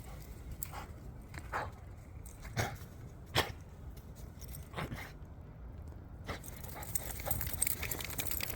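Cobberdog (labradoodle) making a string of short, quiet woofs in its sleep while dreaming, spaced irregularly about a second apart, over a faint steady low hum.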